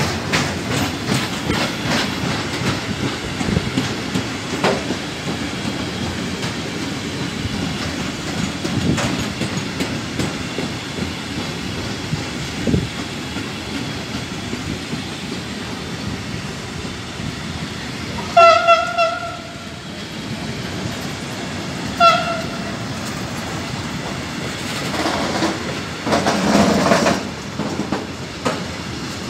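A freight train of tank wagons passing close by: steady rumble of steel wheels on the rails with a quick run of clicks over the rail joints. A loud high tone sounds twice, for about a second and then more briefly a few seconds later.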